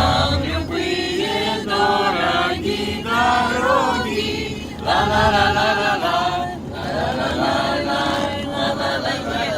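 Voices singing a chant, in phrases of held notes with short breaks between them.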